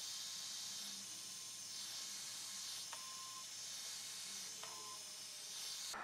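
Heat gun blowing hot air: a steady hiss that swells and fades about every second and a half as it is worked around adhesive-lined heat-shrink tubing over a wire splice.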